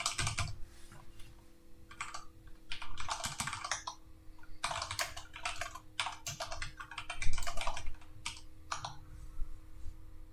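Typing on a computer keyboard: runs of quick keystrokes with short pauses between them, over a faint steady hum.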